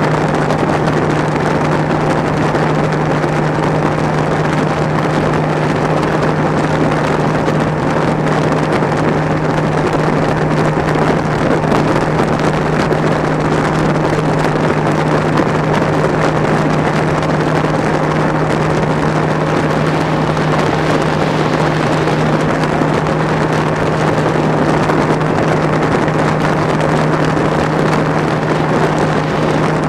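Bass boat's outboard motor running flat out at top speed, holding one steady engine tone under a loud, constant rush of wind and water.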